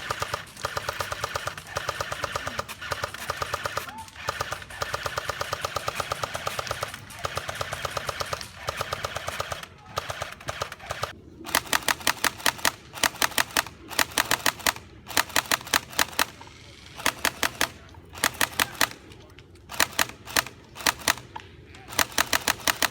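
Airsoft electric guns firing full-auto. Rapid strings of sharp clicks run steadily through the first half, then change about halfway in to louder short bursts of a few shots each, with brief gaps between them.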